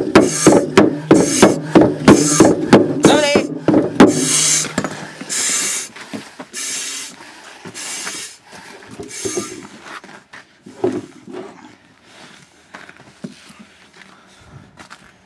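Rapid hard knocks, about three a second, that stop about four seconds in. Then come loud hissing breaths of heavy exertion roughly once a second, which give way to faint footsteps.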